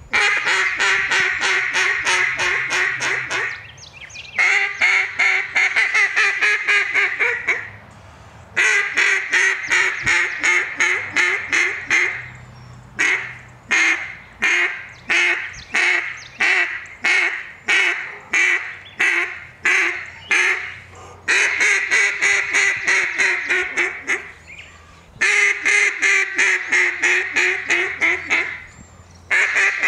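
Sitka RNT Mondo LA duck call blown loudly in runs of rapid quacks, each run a few seconds long with short breaks between. A slower string of separate quacks comes in the middle.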